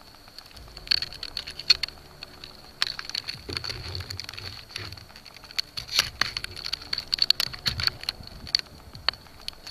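Swiss Army knife scissors scraping and slitting through packing tape on a cardboard box, with irregular crackling clicks and scratches, busiest in the middle. A faint steady high whine runs underneath.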